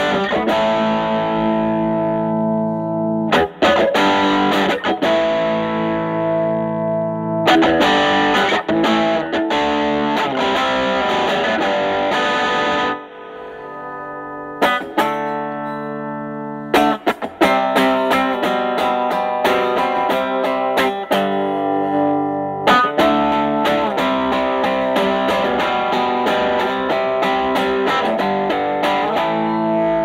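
Telecaster with Alnico single-coil pickups played through a Fender Studio Reverb combo's 8-inch Celestion speaker, driven into overdrive by an Ibanez Tube Screamer Mini stacked in front of the amp's gain. It plays strummed chords and picked lines with ringing, sustained notes, and briefly drops softer and sparser about 13 seconds in.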